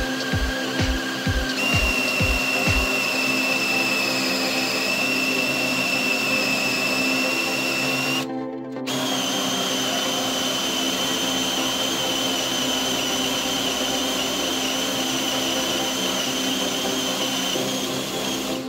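DeWalt 18V XR cordless drill running steadily as it bores through a wooden beam. Its motor whine cuts out briefly about eight seconds in, then starts again at a higher pitch and runs until near the end. Background music plays underneath.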